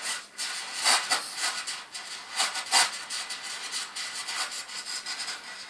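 Quick, irregular scraping strokes of a jeweller's hand tool working a gold ring, several strokes a second.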